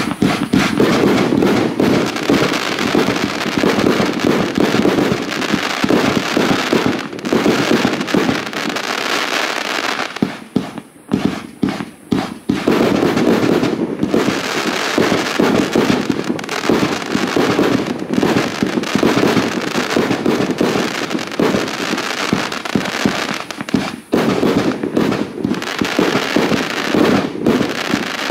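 A 100-shot 30 mm fireworks cakebox assortment firing shot after shot in quick succession: a dense run of launch thumps and shell bursts. There is a short lull about eleven seconds in.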